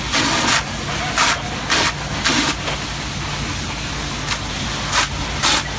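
A fire engine's motor running steadily, with short hissing bursts breaking in irregularly about every half second to a second.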